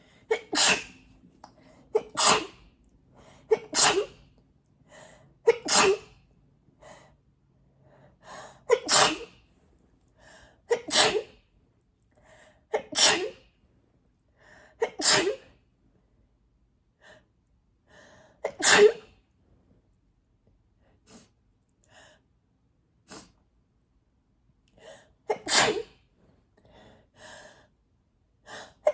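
A woman sneezing over and over in an allergy sneezing fit, which she puts down to cat hair: about ten loud sneezes, the first several coming roughly every two seconds, then further apart, with fainter short sounds in between.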